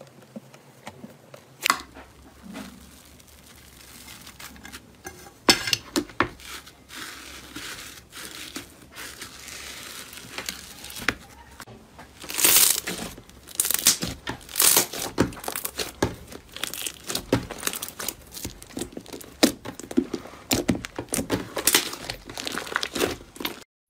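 Green slime squeezed and kneaded by hand, giving irregular crackling pops and squishes that grow denser and louder about halfway through.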